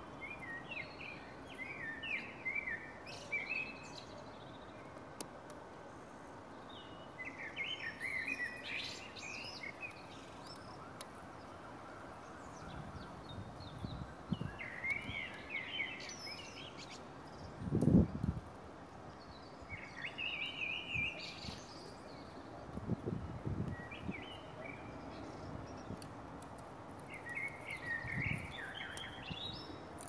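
Magpie chattering in short bursts of calls every few seconds, mobbing a fox to defend its territory. A few dull low thumps, the loudest just past the middle.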